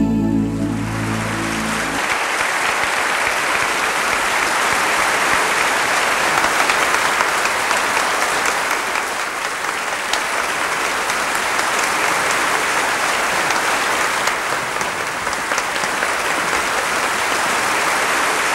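The song's last held chord stops about two seconds in, then an audience applauds steadily.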